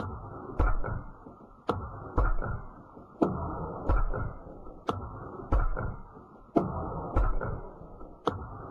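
Rapid series of shots at the twigs of a bare tree branch: about a dozen sharp snaps, coming in pairs about half a second apart, each pair a shot followed by its hit, over a steady low hiss.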